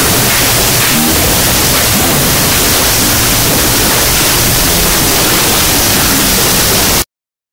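Loud, steady hiss of noise like static, even across all pitches, that cuts off abruptly about seven seconds in.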